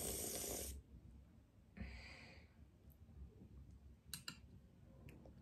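Quiet breath sounds from a person eating: a breathy hiss for the first moment, another short breath about two seconds in, then a few faint clicks.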